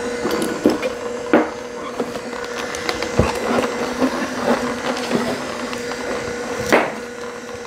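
Vertical slow (masticating) juicer running with a steady hum as its auger crushes pears, with crackling and crunching from the fruit. A few sharp knocks come through, the loudest near the end.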